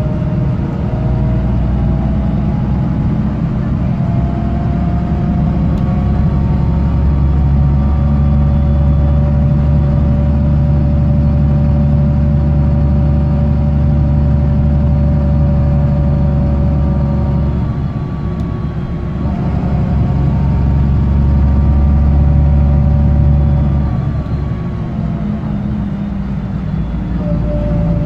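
BMC Condor single-decker bus engine heard from inside the saloon, droning loudly as the bus pulls along, with a slowly rising whine. The note falls away twice, about two-thirds of the way through and again near the end, then climbs again. The exhaust is blown, which adds to the engine's loudness.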